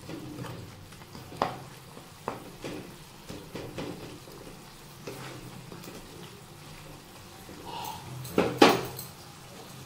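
Wooden spatula stirring tomatoes simmering in oil in a non-stick pan, with soft scrapes and taps against the pan over a faint steady sizzle. Near the end come two sharp knocks, the loudest sounds.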